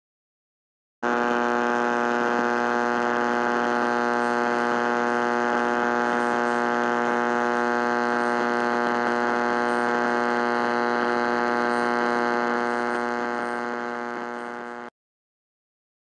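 A steady electronic buzz: one low pitch with many overtones, starting about a second in, fading over its last few seconds and then cutting off sharply.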